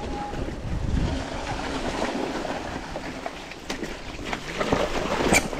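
Mountain bike rolling down a dirt trail into a shallow rocky stream crossing, its tyres splashing through water and rattling over stones. Scattered clicks build in the second half, with a sharp knock near the end.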